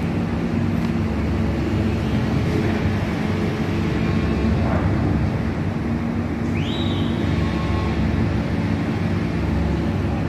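Diesel engine of heavy construction machinery running steadily with a low drone. About six and a half seconds in, a brief high whistle-like tone rises and holds for about a second.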